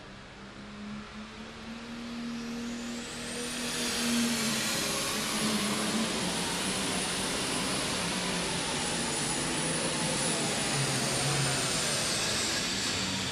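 Turbocharged diesel super stock pulling tractor on a full-throttle pull under load. Its engine gets louder and the turbos' high whine climbs about two seconds in to a steady scream, easing off near the end as the run finishes.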